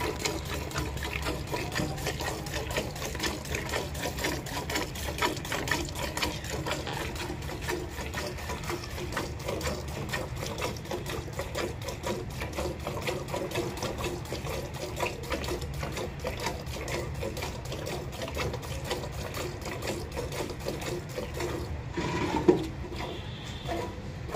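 Cow being milked by hand: rapid, rhythmic squirts of milk hitting milk already in the bucket. Near the end the squirting briefly pauses and there is one brief louder knock.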